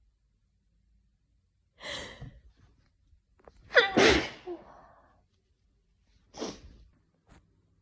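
A person sneezing once, loudly, with a voiced 'ah-choo' whose pitch falls sharply. A short breathy sound comes about two seconds before it, and another near the end.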